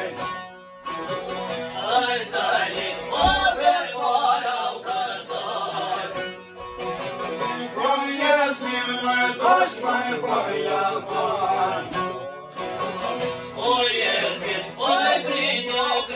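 Men singing a folk song together, accompanied by several long-necked plucked lutes strummed and plucked with a steady drone, after a brief pause just after the start.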